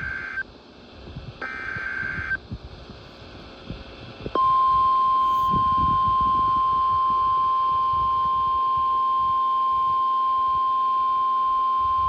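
NOAA Weather Radio Emergency Alert System alert: the end of one SAME header data burst, then a full one-second burst of warbling digital screech. About four seconds in, the loud, steady single-pitch warning alarm tone starts and holds, over faint radio static.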